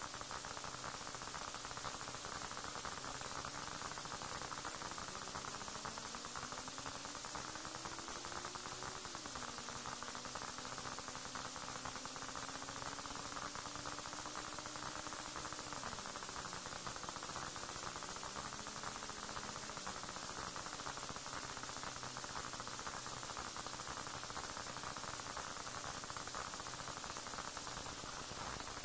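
Steady static hiss with a low hum from a police dash camera's audio. A faint engine tone rises for a few seconds, drops suddenly about nine seconds in, holds level, then falls away around sixteen seconds.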